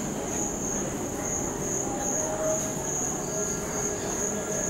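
A cricket chirping in a steady, pulsing high trill over low rumbling background noise.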